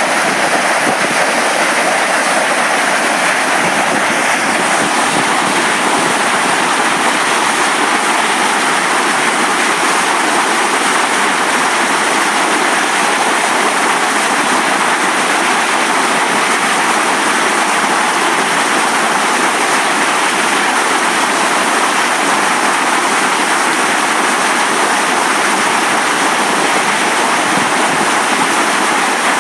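Fast river white water rushing over a rocky ledge: a loud, steady rush of falling water that does not change.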